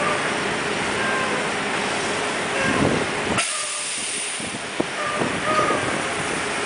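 Steady outdoor rushing noise of city ambience, with a few faint short high chirps. The low rumble drops away suddenly a little over three seconds in.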